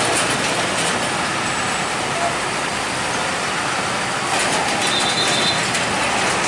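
Hino three-axle cargo truck passing slowly at close range: steady diesel engine and tyre noise.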